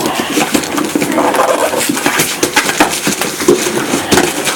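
Dachshund tearing and chewing at Christmas gift wrapping paper: irregular crinkling and rustling of paper.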